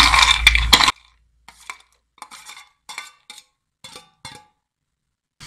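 A metal spoon scraping and tapping on a steel plate as fried cashews and raisins are pushed off it into a pot of payasam. A few sharp clicks in the first second, then faint scattered clinks and scrapes.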